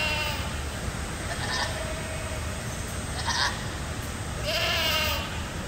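Goats bleating: two short bleats, then a longer bleat near the end.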